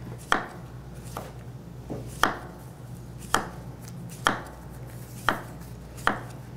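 Kitchen knife slicing a cucumber on a cutting board: about eight sharp knocks of the blade meeting the board, roughly one a second.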